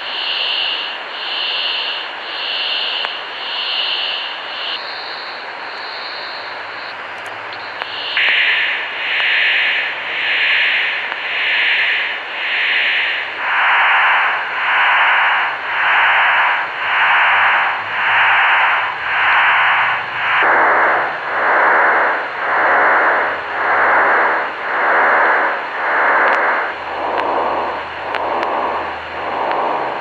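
Shortwave receiver in upper sideband playing a wide, hissing data-like signal that swells and fades about once a second with a warping sound. The uploader takes it for a STANAG 4285 modem signal waving on and off frequency, though it could be radar. As the dial is tuned upward, the signal's band steps lower in pitch several times.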